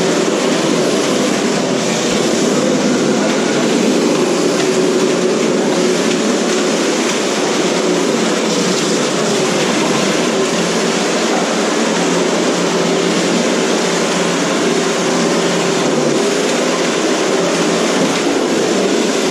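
Several 1/10-scale RC cars' motors and gear drives whirring steadily together as they drive around the derby floor.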